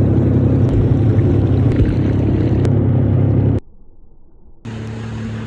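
Jet ski engine running under way, a steady loud hum with water and wind noise. It cuts out suddenly about three and a half seconds in and comes back a second later, quieter.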